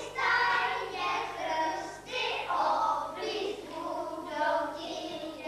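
A group of children singing together, a simple song in short phrases of about a second each.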